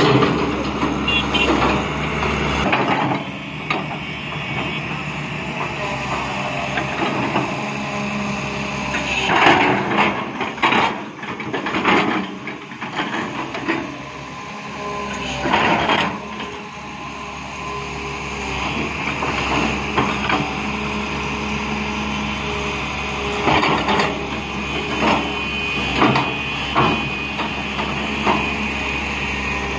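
Hydraulic crawler excavator's diesel engine running steadily as the bucket pushes and levels sand, with several sharp knocks and clanks from the machine partway through and near the end.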